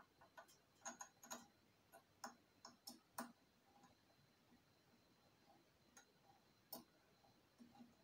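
Light, scattered clicks and taps of small hard parts and bolts being handled. They come thick and fast for the first three seconds, then only a few single clicks follow.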